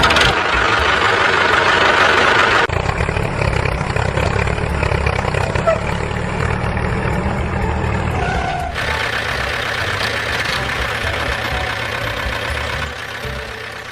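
Engine running steadily at idle with a low chugging, the sound changing abruptly twice, about three seconds in and about nine seconds in.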